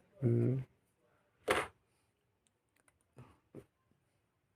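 A short hum of voice, then one sharp click about a second and a half in and two faint clicks later, as small metal parts of a soldering iron and its bit are handled.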